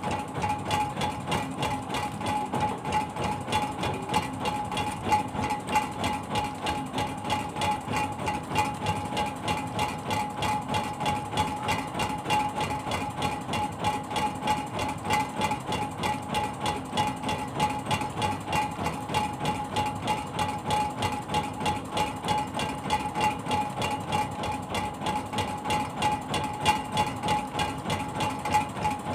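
A fishing boat's inboard engine running steadily at idle, with a regular thumping beat of about three a second.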